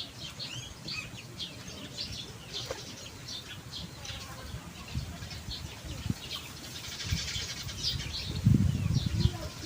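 Many small birds chirping rapidly and continuously, with a low thudding handling noise about eight and a half seconds in.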